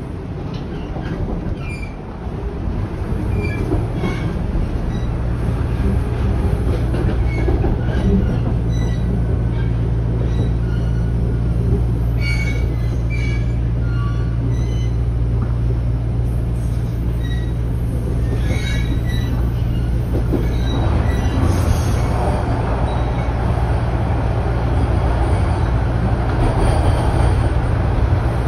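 Toronto Rocket subway train running, heard from inside the car: a steady motor hum over the rumble of wheels on rail. Short high wheel squeaks come here and there, bunched twice in the middle. It gets louder over the first few seconds as the train picks up speed.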